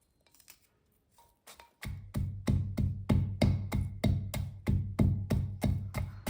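Pestle pounding softened coconut in a kundi mortar: steady dull thuds, about three to four a second, starting about two seconds in.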